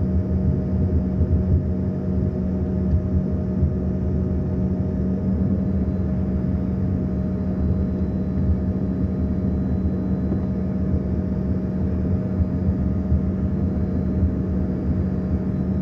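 Airliner engines running steadily: a low, unchanging rumble with a few steady hum tones over it.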